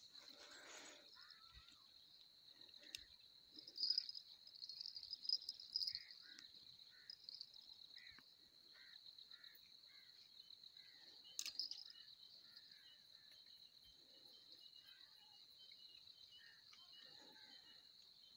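Faint, steady high-pitched chirring of insects, with scattered short chirps and a single sharp click about eleven seconds in.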